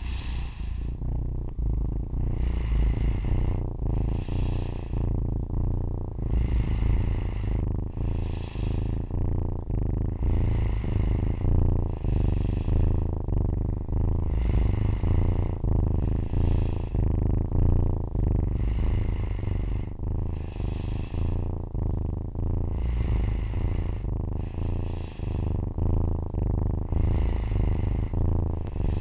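A four-week-old Siamese kitten purring steadily close to the microphone: a continuous low, fast-pulsing rumble. Over it comes a sleeping person's snoring breath, a whistly in-and-out about every four seconds, alternating a longer and a shorter sound.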